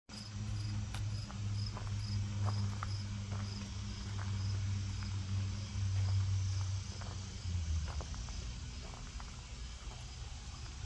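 A cricket chirping, a short high chirp repeating evenly a little over twice a second, over a low steady hum that drops slightly in pitch and fades about seven seconds in.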